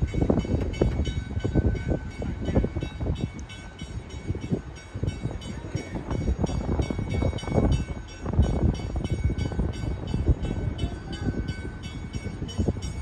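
Wind buffeting the microphone in uneven gusts: a low rumble that swells and drops irregularly.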